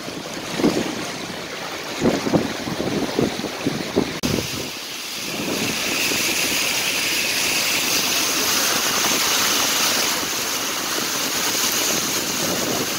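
A car's tyres driving through standing floodwater, a steady hissing spray heard from inside the car. Wind gusts on the microphone for the first few seconds.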